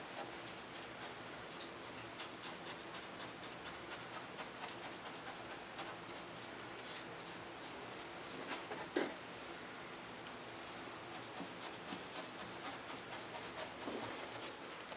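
A paintbrush dabbing and rubbing paint onto a painted fascia board, giving a string of faint soft taps and brushing. There is one louder brief knock about nine seconds in.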